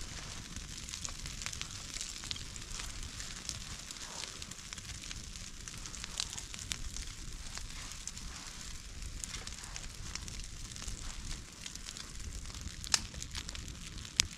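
Small, freshly lit campfire of bark and split kindling crackling, with many small pops throughout and a couple of louder snaps near the end.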